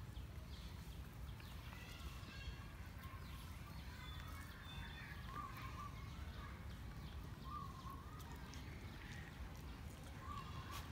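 Faint outdoor background with a steady low rumble, and a short faint chirping call that repeats every two or three seconds, with fainter higher chirps between.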